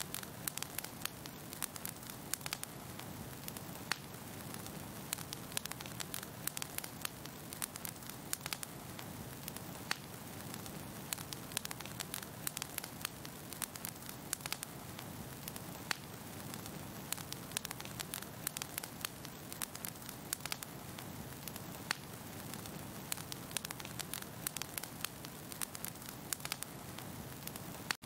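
Fire crackling: a steady rush of flames with frequent, irregular sharp pops and snaps.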